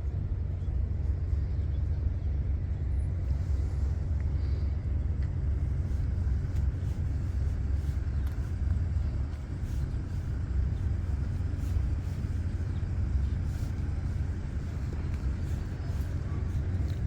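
Rice combine harvester running with a steady low rumble.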